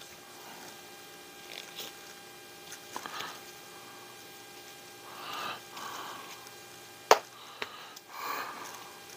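Shop towel rubbing over small plastic RC crawler axle parts as they are wiped clean, in a few soft brief scuffs, with one sharp click about seven seconds in. A faint steady hum lies beneath.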